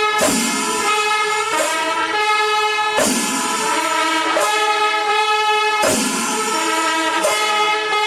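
Background instrumental music: sustained pitched notes that change about every second and a half, with a drum hit about every three seconds.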